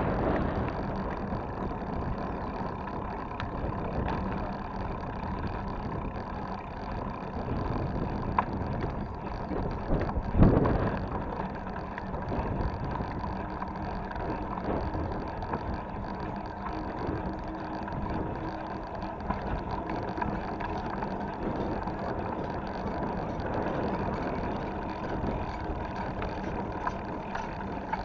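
Mountain bike rolling along a concrete road: a steady rush of tyre noise and wind on the microphone, with one sharp jolt about ten seconds in.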